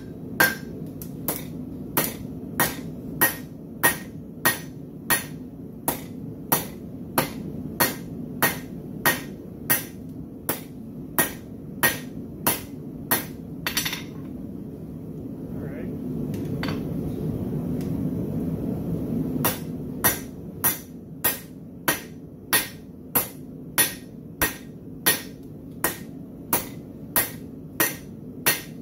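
Hand hammer forging hot steel on an anvil in steady, evenly spaced blows, about one and a half a second, over a steady low hum. About halfway through the blows stop for roughly five seconds and the hum grows louder, then the hammering resumes at the same pace.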